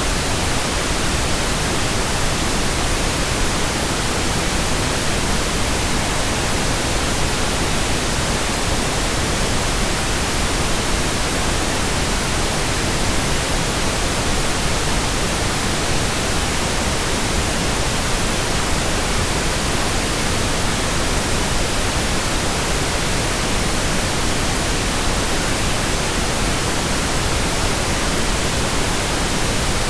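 Steady white noise: an even, unbroken hiss spread across all pitches, with no change in level or character.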